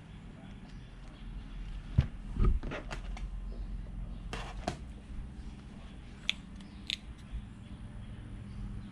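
A scattering of light clicks, taps and crinkles from a phone's back panel and its adhesive strip being handled, over a low steady hum.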